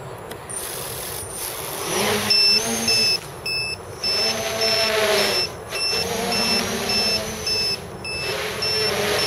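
Armattan CNC 258 quadcopter's motors and propellers whirring in flight, the pitch swelling and falling with the throttle. From about two seconds in, a beeper sounds about twice a second: the low-battery alarm of a nearly dead pack.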